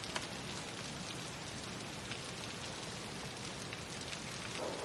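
Steady rain falling, an even hiss with scattered drip ticks.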